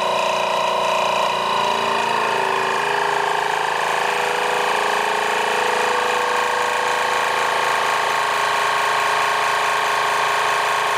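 Geryon countertop vacuum sealer's pump motor running through a vacuum-seal cycle: a steady hum whose lower tones slide slightly lower in the first few seconds, then cut off suddenly near the end as the cycle finishes.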